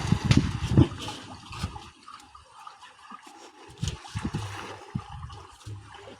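River water splashing and trickling, with irregular low thumps and knocks. It is loudest in the first second and quieter from about two seconds in.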